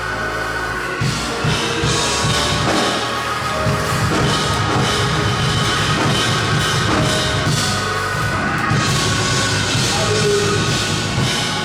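Church band playing up-tempo music on a drum kit with held keyboard chords: a praise break in the sermon.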